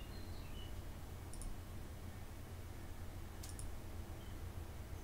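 Two computer mouse clicks about two seconds apart, each a quick double tick of button press and release, over a low steady hum.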